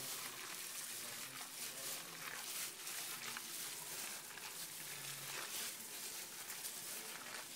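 A hand squishing and kneading a wet batter of gram flour, chopped spinach, potato and onion: a soft, steady wet squelching with many small clicks.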